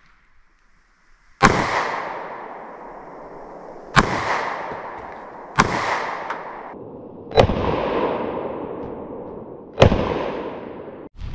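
A pistol fired five single shots at uneven intervals of about one and a half to two and a half seconds. Each shot is followed by a long echo that dies away.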